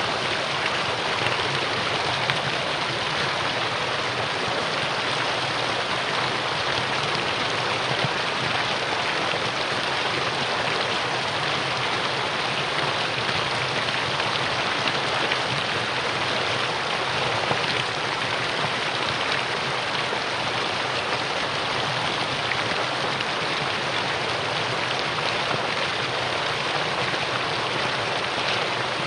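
Mountain stream running over rocks in a steady, even rush of water.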